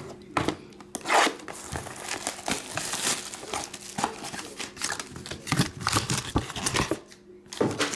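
A cardboard trading-card box being opened by hand and a black plastic-wrapped slab pack pulled out and unwrapped: irregular crinkling, rustling and tearing, easing off shortly before the end, with one more burst near the end.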